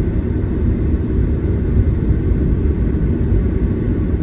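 Steady low road and tyre rumble heard inside the cabin of a Tesla electric car in motion, with no engine sound.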